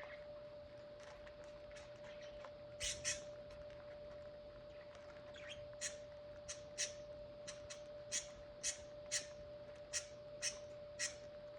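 Budgerigars giving short, sharp chirps: a pair about three seconds in, then a steady run of single chirps roughly every half second.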